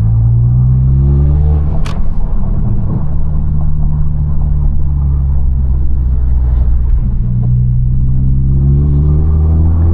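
2022 Honda Civic Si's 1.5-litre turbocharged four-cylinder engine under acceleration, heard from inside the cabin. Its pitch rises for about two seconds, there is a sharp click, then it runs steady, and it rises again in the last few seconds.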